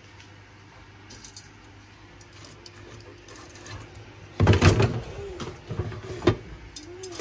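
Faint room tone, then from about four seconds in a run of irregular clattering and knocks as objects are handled, with the loudest knock a little before the end.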